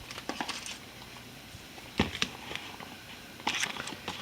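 Packaging being opened and handled by hand: light crinkling and rustling with small clicks, a single knock about two seconds in, and a busier patch of rustling near the end.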